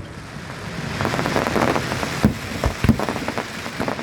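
Aerial fireworks: a dense crackle like heavy rain builds from about a second in, broken by a few sharp bangs.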